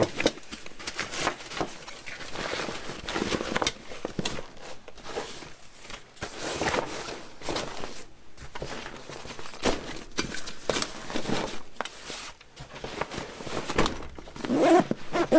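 Cordura nylon backpack (Maxpedition Pygmy Falcon II) and gear rustling and knocking as items are handled and packed back into it, in irregular bursts. Near the end, the pack's zipper is pulled.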